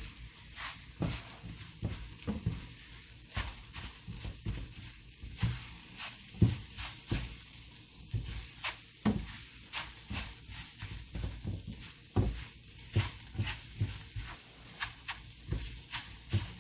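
Eggs being scrambled in a frying pan: irregular scrapes and taps of a spatula against the pan over a light sizzle.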